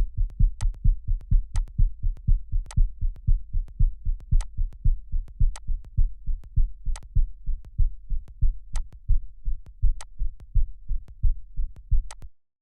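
Heartbeat sound effect, edited: a fast, even run of deep low thumps, about three a second, with a sharp click every second or so. It cuts off suddenly near the end.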